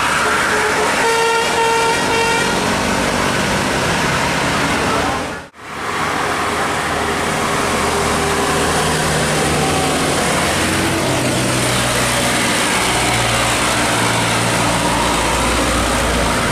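A tour bus's multi-tone telolet horn sounding a short chord about a second in, over heavy road noise. After a brief dropout, a bus's diesel engine runs with its pitch climbing as it pulls away.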